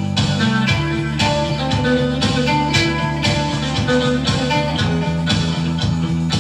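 Instrumental passage of a rock song: a guitar plays a melody of short notes over a steady bass line and beat, with no singing.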